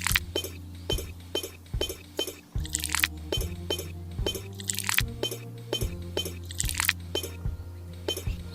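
Background music with a steady beat: a deep bass line under regular ticks about twice a second, with bright, bell-like falling sweeps every couple of seconds.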